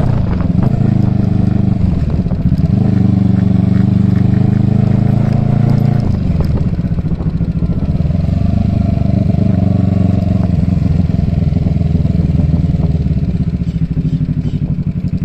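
Kawasaki Eliminator motorcycle engine running during a ride; its note drops about a second in and again around six seconds in, then holds at a lower, steadier pitch.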